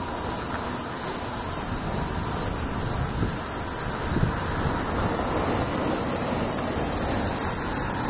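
Steady rushing wind buffeting the microphone, with a continuous high-pitched trilling of insects above it.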